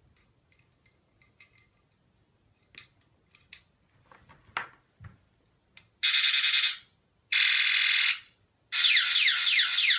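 Malem M03 eight-tone body-worn bedwetting alarm sounding three short loud electronic alarm bursts, set off through its plugged-in moisture sensor. The first two are steady buzzing tones, and the last is a quick run of falling sweeps. Before them come a few faint clicks of the sensor plug and lead being handled.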